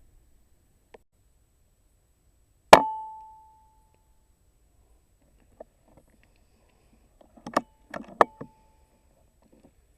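An air rifle shot: one sharp crack with a short metallic ring that fades over about a second. Near the end comes a quick cluster of metallic clicks and knocks, one with a briefer ring.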